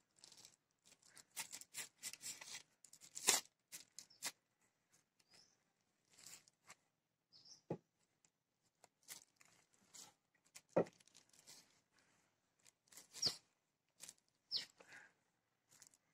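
Quiet, scattered crinkling of a polythene bag and rubbing of a rubber cricket-bat grip as the grip is pushed down the handle over the plastic, with a few sharper crackles.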